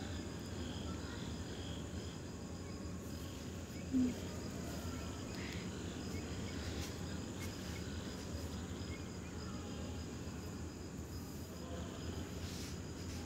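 Crickets chirping steadily behind a low hiss, with faint scrapes of a flat spatula stirring watery gravy in an iron kadhai, and one short low knock about four seconds in.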